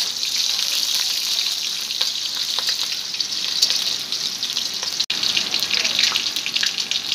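Green chillies sizzling and crackling in hot oil in an aluminium kadai while being stirred with a spatula. The sound cuts out for an instant about five seconds in.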